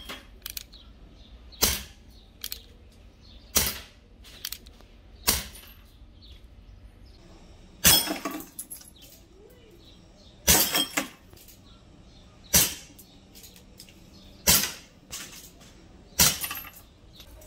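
Airgun replica of a Colt Peacemaker revolver firing eight sharp shots about two seconds apart, with fainter clicks between shots, and glass bottles breaking under the hits.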